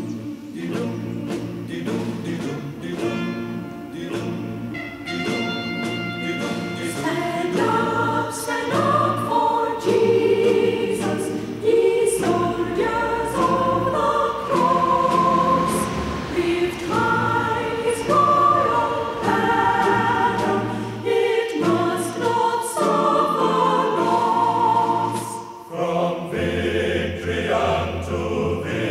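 A choir singing slow sacred music in held chords that change every second or so.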